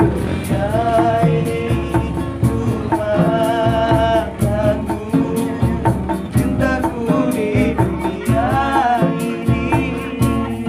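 Two nylon-string acoustic guitars strummed in a steady rhythm, with a voice singing a wavering melody over them.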